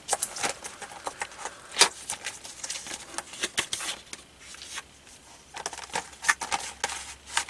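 Retail RAM packaging being handled and opened: irregular plastic clicks, crackles and rustles, busier near the end.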